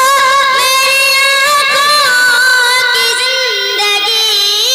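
A boy's voice singing a naat, a devotional Urdu poem in praise of the Prophet, unaccompanied into a microphone, holding long notes with ornamental bends in pitch.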